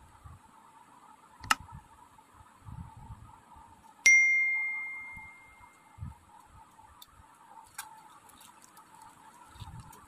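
A stainless-steel bowl clinked once, giving a clear metallic ding that rings and fades over about a second and a half, about four seconds in. A sharp click comes earlier, and soft handling knocks come and go.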